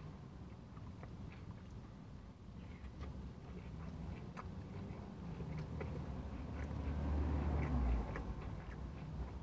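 A person chewing a mouthful of soft, sauce-soaked fried chicken sandwich, with scattered small wet mouth clicks. A low rumble swells about seven seconds in and fades a second later.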